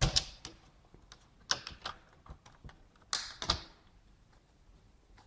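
Plastic clicks, snaps and short scrapes of a laptop screen bezel's clips being pried loose, a handful spread out, the sharpest at the very start and a longer crackle about three seconds in.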